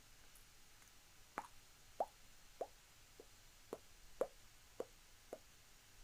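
Underwater bubble sound effect: a series of about eight soft, faint plops, roughly two a second.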